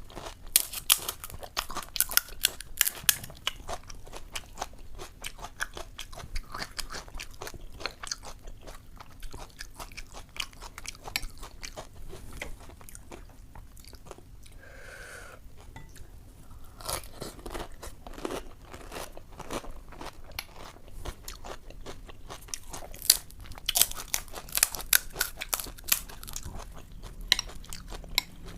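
Close-up eating sounds of puchka (pani puri): crisp hollow puri shells crunching between the teeth and chewing. Clusters of sharp crunches come near the start and again in the second half, with a quieter stretch of chewing in the middle.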